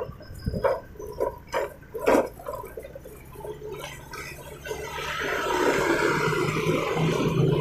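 A few sharp knocks and clatters, then a small motorcycle engine idling with a steady low hum that, along with a rushing hiss, grows louder over the last few seconds.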